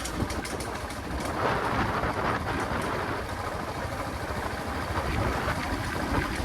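Royal Enfield Classic 350's single-cylinder engine running on the move, heard under a steady rush of road noise.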